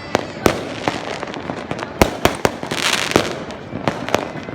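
Fireworks going off: an irregular run of sharp bangs, several close together, with a hissing crackle about three seconds in.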